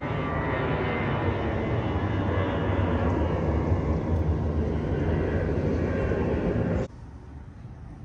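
Jet airliner flying low overhead with a loud, steady engine noise that cuts off suddenly about seven seconds in.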